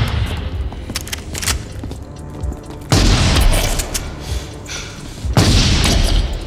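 Two shotgun blasts from a film soundtrack, about two and a half seconds apart, each with a long echoing tail, over the film's music score.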